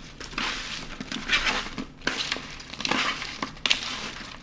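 Hands tossing raw cauliflower florets and onion wedges in olive oil on a parchment-lined baking sheet: the vegetables and paper rustling in several irregular bursts.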